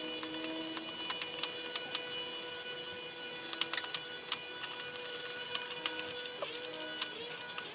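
Background music: held tones that glide up into pitch and drop away, over a fast, even ticking beat.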